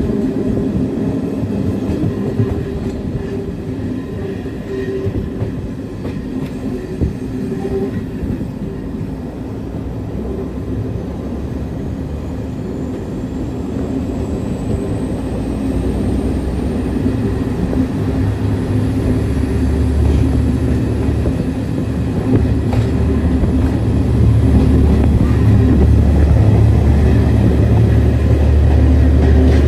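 Moving train heard from an open window of a Cravens coach: a steady run of wheel and rail noise. About two-thirds of the way in, a deep rumble builds and the sound grows louder as the train enters a tunnel.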